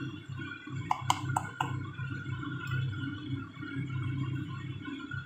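A spoon knocking against the stainless-steel soup pot, four quick clicks about a second in, over quiet background music.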